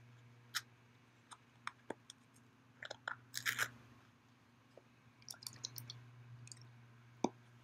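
Instant pudding mix box and its inner plastic pouch crinkling and tearing as they are opened and tipped over the bowl: faint scattered crackles, with a louder flurry about three seconds in and another near six seconds.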